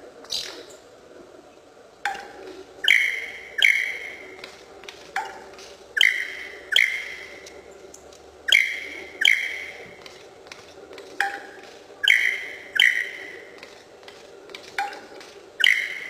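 Superb lyrebird calling during its tail display: loud ringing notes, each sharply struck and sliding down in pitch, repeated in runs of two to four.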